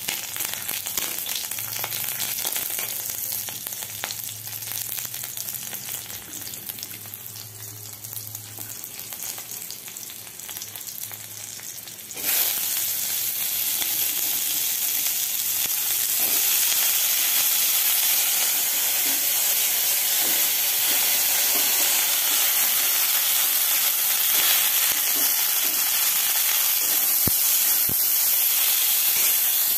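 Green chillies sizzling in hot oil in a steel kadai, the sizzle slowly fading. About twelve seconds in, cut potato and cauliflower go into the oil and a louder, steady frying sizzle starts, stirred with a metal spatula.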